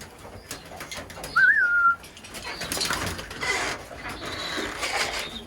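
Racing pigeons cooing and wings flapping in the loft, with one short, loud whistle that rises and wavers about a second and a half in: a fancier's call whistle for the birds.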